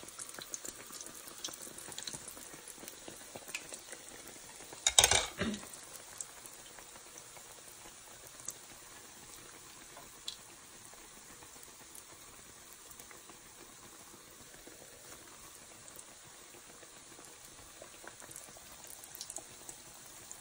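Patonggo dough sticks deep-frying in hot oil in a pot: a steady sizzle with fine crackles and pops. A brief louder noise about five seconds in.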